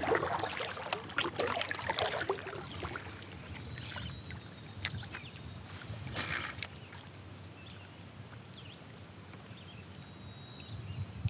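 Water lapping and splashing against a sit-on-top kayak hull, with small knocks and clicks from handling, busiest in the first few seconds. About six seconds in, a short hiss ending in a click, like a jig being cast on a fishing rod; quieter lapping follows.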